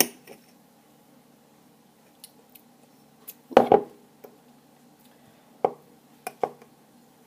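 Kitchen handling noises: scattered clinks and knocks of dishes, a spoon and containers being moved, the loudest a cluster about three and a half seconds in, over a faint steady hum.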